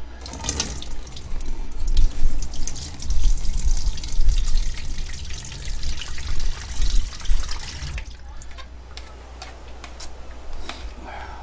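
Water running from a tap and splashing, loud and uneven with many small clicks for about eight seconds, then quieter.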